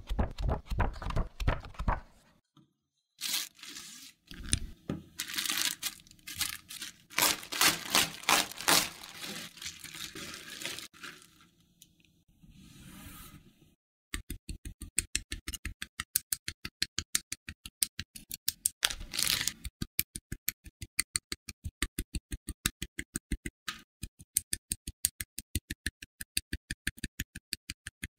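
Plastic model-kit part bags crinkling and instruction booklet pages turning with irregular rustles. From about halfway, an evenly spaced ticking starts, about five times a second.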